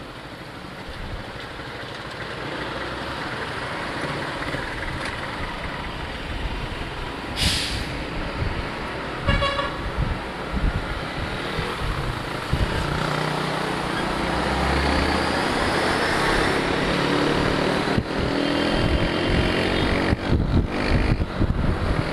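Motorcycle riding in city traffic: steady road and wind noise, a short hiss about seven seconds in, a brief beeping horn around nine to ten seconds, and the motorcycle engine revving up with rising pitch in the last few seconds as the road opens.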